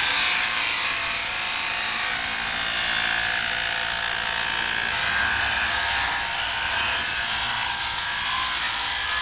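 Sheep-shearing machine handpiece running steadily, its comb and cutter clipping the wool off a sheep's belly: a loud, even, high-pitched buzz.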